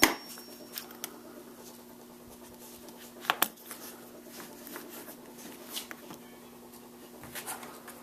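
Faint handling of leather straps and a metal swivel trigger snap on a worktable: light rubbing with a few small clicks, the loudest about three seconds in, over a steady low hum.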